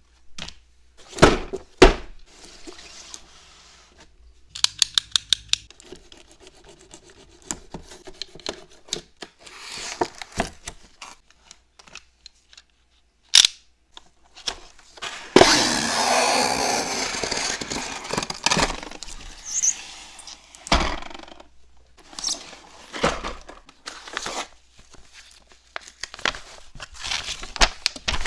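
Packaging of a boxed diecast model car being handled and opened: scattered taps and clicks on cardboard and plastic, a quick run of ticks about five seconds in, and a longer noisy scraping stretch of about five seconds past the middle.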